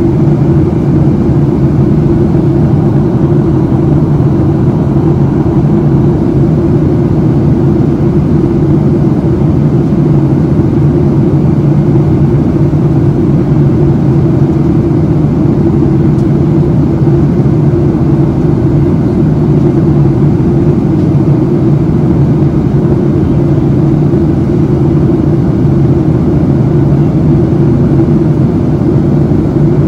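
Steady cabin noise of a Boeing 737-700 in flight: a constant drone of its CFM56-7B jet engines and airflow over the fuselage, with an even low hum and no change in pitch or level.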